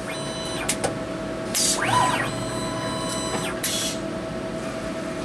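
Automated soldering robot's stepper-motor axes whining as the soldering-iron head and solder-feed arm move down to the joint. The pitch glides up and down as the motors speed up and slow down, over a steady machine hum. Two short hisses come about a second and a half in and near the four-second mark.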